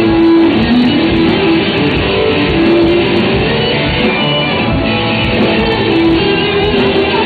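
Live rock band of electric guitars and drums playing an instrumental passage, with long held notes in the melody over the full band.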